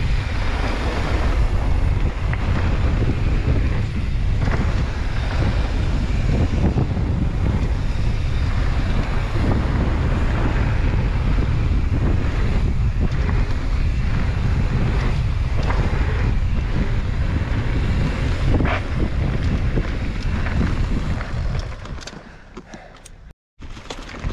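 Wind buffeting the microphone during a fast mountain-bike ride, with a steady low rumble underneath. It dies down about two seconds before the end, with a brief cutout.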